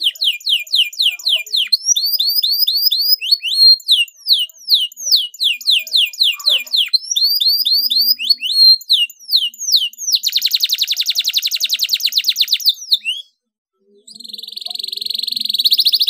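Domestic canary singing: a run of quick, high, downward-slurred whistled notes, then a very fast rolling trill about ten seconds in. After a brief pause, another fast trill starts and grows louder near the end.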